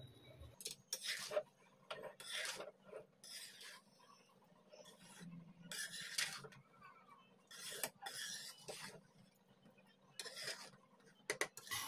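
Metal spatula scraping through nearly cooked rice in a metal kadhai, turning it over in a series of short strokes with quiet gaps between them.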